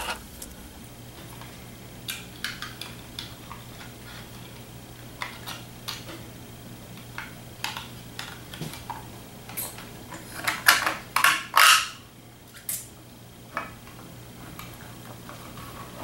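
Light clicks, taps and scrapes of a small 3D-printed plastic case being handled and fitted onto a ceiling-mounted garage door opener, with a cluster of louder scraping rustles about ten to twelve seconds in. A low steady hum runs underneath.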